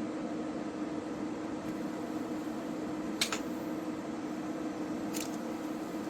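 Steady machine hum, like a small fan or electrical appliance, with two short clicks about two seconds apart.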